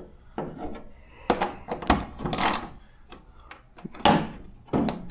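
Irregular clicks, knocks and a short scrape of a hand tool and hands working at a bolted-on car over fender as it is being unbolted.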